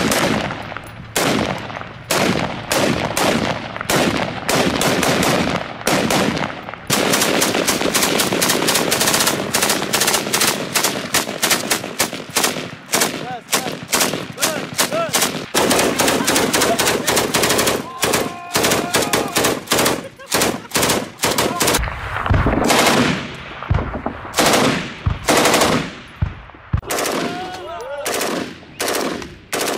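Gunfire from rifles and a belt-fed machine gun. Spaced single shots open and close the stretch, with long rapid bursts of automatic fire in the middle.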